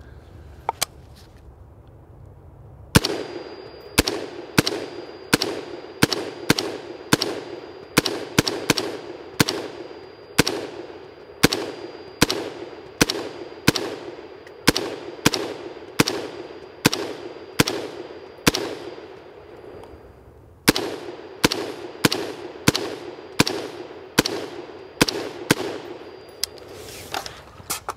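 Brownells BRN-Proto, a replica of the late-1950s Armalite AR-15 prototype, firing 5.56 mm ball in rapid semi-automatic fire: a long string of sharp shots, about one to two a second, each ringing off briefly. The string starts about three seconds in and breaks once for about a second and a half roughly two-thirds of the way through.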